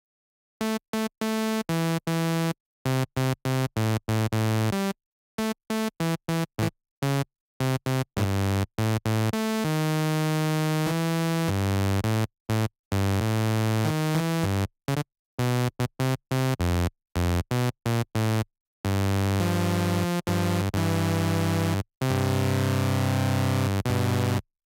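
Serum software synthesizer playing sustained chords from a MIDI keyboard. The chords start and stop abruptly many times, with dead silence between them, then hold longer near the middle and through the last few seconds before cutting off.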